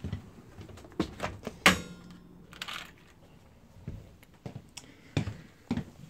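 Hands handling tools and small hardware: a series of irregular clicks and knocks, with one sharp clack that rings briefly a little under two seconds in, and a short rustle soon after.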